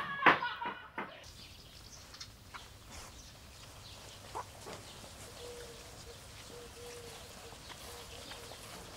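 Brief loud, high-pitched calls right at the start, then a quiet outdoor background with scattered faint sounds and, from about halfway, a faint wavering hum.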